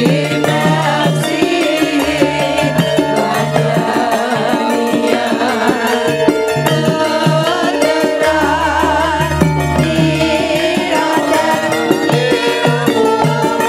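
Javanese gamelan music with female sindhen singers singing together into microphones, their voices wavering with vibrato over the steady ring of the bronze instruments. A deep gong stroke comes in about eight seconds in and rings on for a few seconds.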